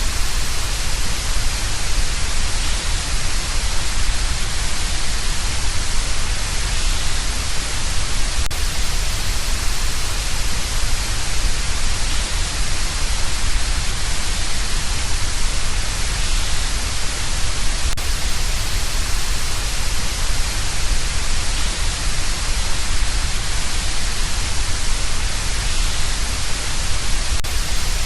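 Steady hiss of noise with a low rumble underneath, presented as the 'sound' of Neptune's moon Neso. A faint click about every nine and a half seconds marks where the noise loop repeats.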